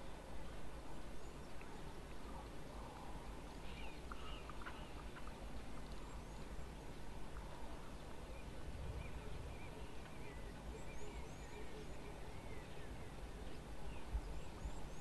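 Faint outdoor bush ambience: a steady low wind rumble with scattered short, high chirps throughout.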